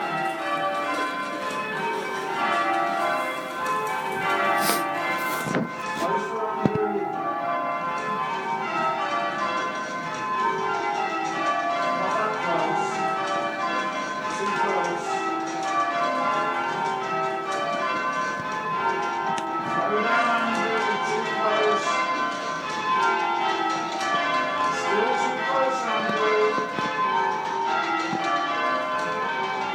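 Church tower bells rung full circle in change ringing, struck one after another in an even, continuous rhythm, each row stepping down the scale.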